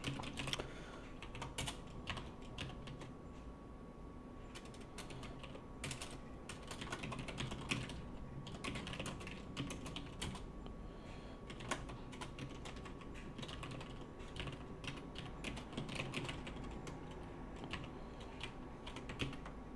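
Typing on a computer keyboard: irregular runs of keystrokes broken by short pauses.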